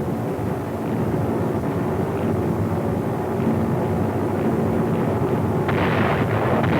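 Steady drone of a formation of four-engined heavy bombers' piston engines, with a low hum held throughout. Near the end a louder spell of rough, crackling noise joins in.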